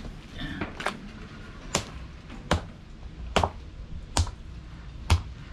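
A whole octopus beaten with a brick on a wooden board: six dull, wet whacks, one about every 0.8 seconds. The beating tenderizes the tentacles so they are not rubbery when cooked.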